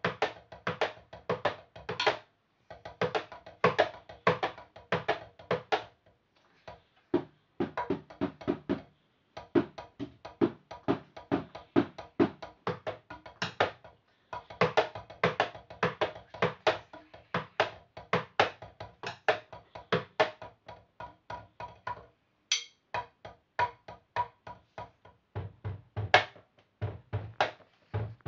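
Wooden drumsticks playing fast runs of strokes on a drum practice pad, in bursts broken by short pauses. A few deeper thuds come in near the end.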